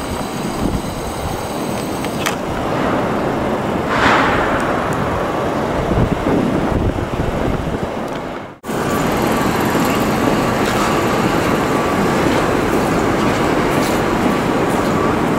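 City street traffic noise: a steady rush of passing vehicles. It swells briefly about four seconds in and cuts out for a moment past the middle.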